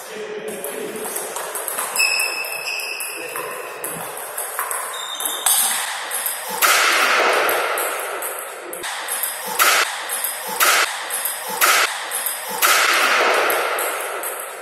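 Table tennis ball clicking off rackets and table during a rally, with shoe squeaks on the hall floor, then a few single ball ticks about a second apart. Two longer rushing noises, the loudest sounds here, come in the second half.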